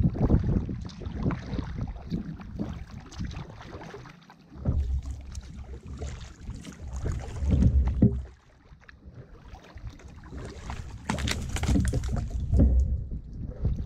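Kayak paddling: the paddle blades dip and splash in calm water. Gusts of wind rumble on the microphone, loudest a few seconds in and again near the end.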